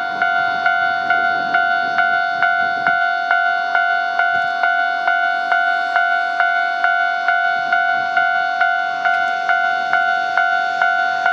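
Japanese railway level-crossing alarm ringing, an electronic bell striking evenly about twice a second over a steady ringing tone, as a train approaches.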